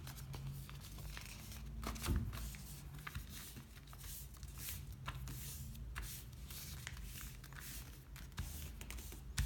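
A sheet of paper rustling and crinkling as a paper airplane is folded in half by hand and the crease pressed flat against a table. There are many short rustles, with a louder one about two seconds in.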